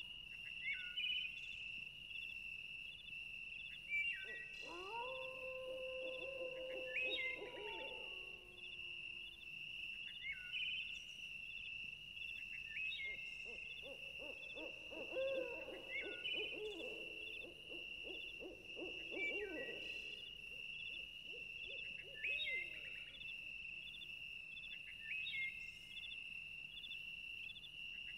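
Wild outdoor ambience: a steady high-pitched insect trill runs under a bird's short falling call, repeated every two to three seconds. About five seconds in, a lower hooting call rises and holds for a few seconds; midway, a jumble of wavering lower animal calls follows.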